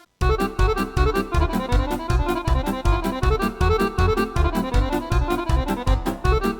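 Yamaha arranger keyboard playing back a style demo: drums, bass and accompaniment with a steady, quick beat, cutting in just after a brief silence.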